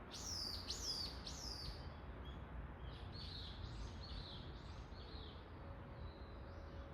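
A songbird calling: three loud, high sweeping notes in the first two seconds, then a run of shorter, softer chirps.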